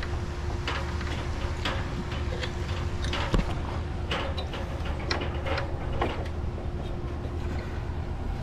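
Scattered light clicks and knocks from a fiberglass extension ladder with aluminium rungs as someone climbs and shifts on it, one sharper knock about a third of the way in, over a steady low rumble and a faint steady hum.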